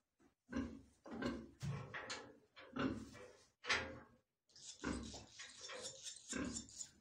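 A pig grunting in short repeated bursts. From about four and a half seconds in, a rapid high twittering joins it: barn swallow chicks begging as an adult comes to the mud nest.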